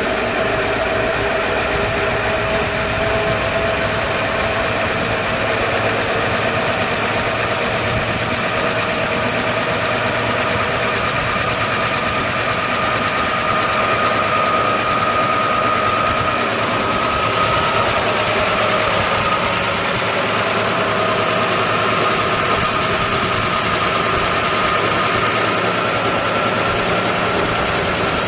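1957 Chevrolet Bel Air's 283 V8 idling steadily, heard close under the open hood, with a thin whine over the engine note that creeps slightly up in pitch.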